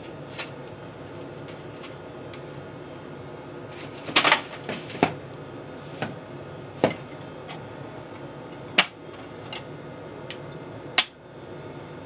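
Clicks and knocks of the ISS MELFI freezer's door and cold sample tray being handled in gloved hands: a loud cluster about four seconds in, single clicks through the middle, and a sharp click near the end as the door is latched shut. Under it runs the station's steady cabin hum.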